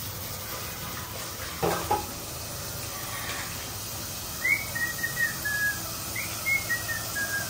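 Kitchen tap running into a pressure cooker pot in a steel sink, the pot knocking twice against the sink near two seconds in. In the second half a bird calls twice, each call a quick run of short notes stepping down in pitch.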